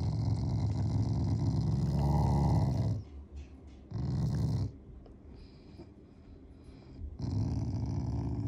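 Black Shiba Inu growling in low rumbles while his head is stroked: a long growl of about three seconds, a short one about four seconds in, and another near the end. It is an affectionate growl, not an angry one.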